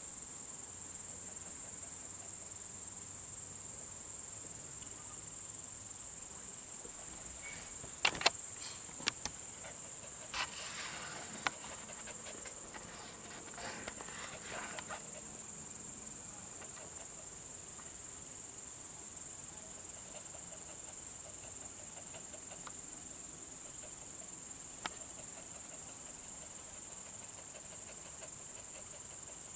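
Steady, high-pitched chirring of crickets at night, unbroken throughout; a few sharp clicks and a short spell of rustling about eight to fifteen seconds in.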